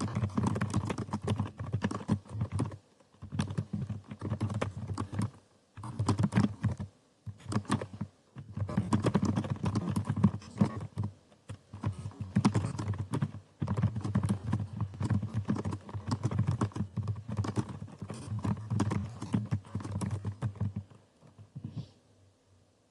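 Fast touch-typing on a computer keyboard: rapid keystrokes in bursts of a few seconds with brief pauses between them. The typing stops about a second before the end, leaving only a few faint clicks.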